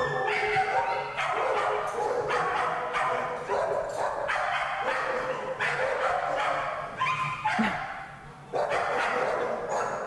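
Dogs in a shelter kennel barking over and over, with a short lull about eight seconds in.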